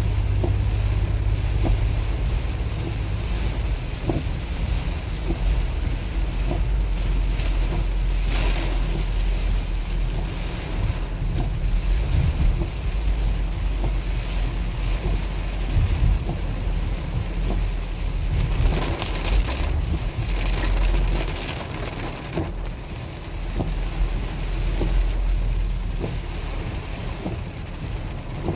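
Heavy rain pattering on a minivan's windshield and roof, heard inside the cabin over the low rumble of the engine and tyres on a wet road. The hiss swells twice, about eight seconds in and again around twenty seconds in.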